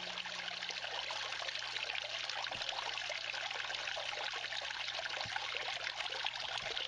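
Water running steadily through a small homemade drop riffle sluice, washing over the wooden riffles, with a faint low hum underneath.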